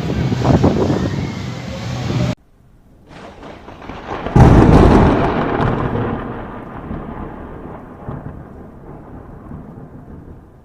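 Fireworks going off: loud rumbling and crackling, then a sudden cut to near quiet. About four seconds in, a single big firework shell bursts with a deep boom that rolls and fades away over several seconds.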